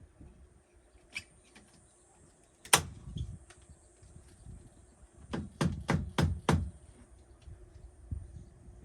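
Sharp knocks on a wooden porch door: a single knock, then about two and a half seconds later five quick knocks in a row.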